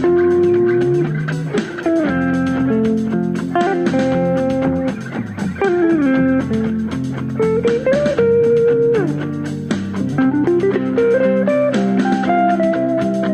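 Guitar playing a melody, with notes that slide or bend in pitch, over sustained lower notes.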